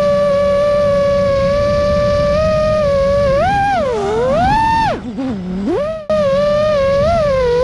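FPV quadcopter's motors whining steadily while cruising. About three seconds in, the pitch swoops up and down with the throttle, then drops low as the throttle is chopped and the sound briefly dips. It climbs back to a steady whine near the end, with a rushing of air underneath.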